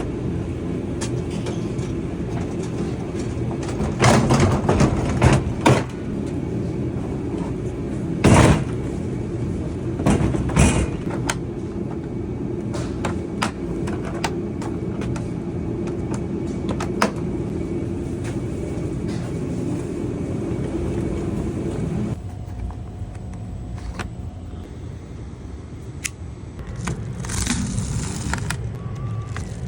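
A vehicle engine runs with a steady hum and stops about 22 seconds in. Over it come knocks and clatter of equipment being handled, loudest a few seconds in and again around 8 and 10 seconds.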